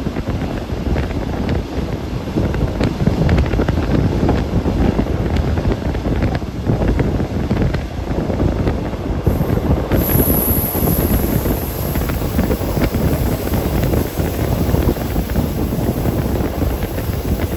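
Two-axle Class 810 diesel railbus running along the line: a steady rumble with the rattle and clatter of its wheels on the rails, and wind buffeting the microphone at the window.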